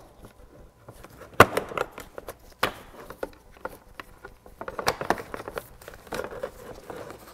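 Gloved hands handling wiring and zip ties against the roll cage and plastic bed: irregular rustling and crinkling with scattered sharp clicks, the loudest about a second and a half in and again a second later.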